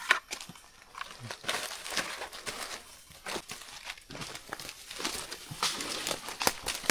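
Footsteps on a leaf-littered jungle trail, with irregular crackling and rustling of dry leaves and undergrowth brushed past. It grows busier and louder toward the end.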